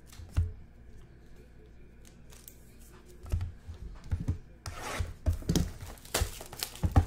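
A sealed, shrink-wrapped trading-card box being handled: a few knocks on the table as boxes are moved, then from about halfway a run of rubbing, scraping and tearing noises as the box's plastic wrap is worked open in the hands.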